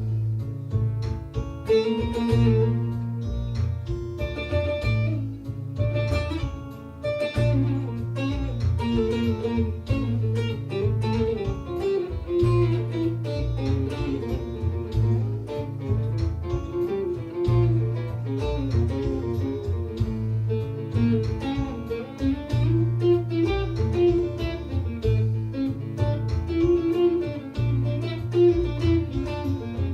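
Bağlama playing a quick, ornamented improvisation in the Hicaz makam, with dense plucked notes. Held low bass notes under it change every second or so.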